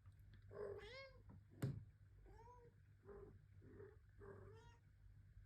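Domestic cat meowing, about five short calls, the first the longest. A sharp knock sounds about a second and a half in.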